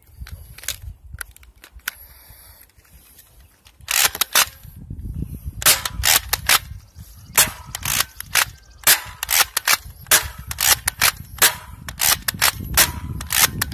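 DartZone BallistixOps Powerball pump-action foam-ball blaster being pumped and fired over and over. After a few faint clicks, a rapid string of sharp plastic clacks and pops starts about four seconds in, often in close pairs, a couple per second.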